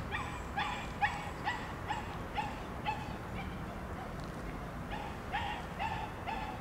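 A dog barking repeatedly, about two barks a second, pausing for about a second and a half in the middle before starting again, over a steady low rumble.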